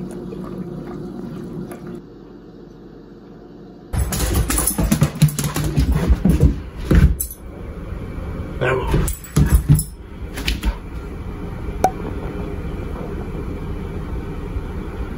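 Coffee pouring into a ceramic mug for the first couple of seconds. Then, from about four seconds in, a dog rubs and rolls on a rug, making loud, irregular scuffing and rustling that settles after about ten seconds.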